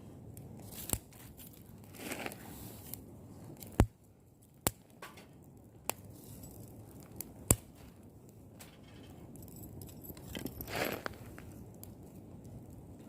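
Rustling and crinkling of handled material, with several sharp clicks or snaps through the middle, the loudest nearly four seconds in.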